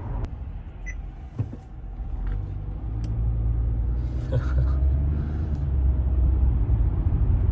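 Low rumble of a Toyota Camry's engine and road noise heard from inside the cabin, growing louder over the last few seconds, with a few faint clicks.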